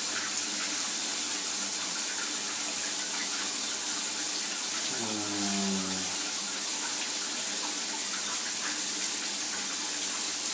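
Shower water running steadily into a bathtub, an even hiss. About five seconds in, the man in the tub lets out a short, low moan.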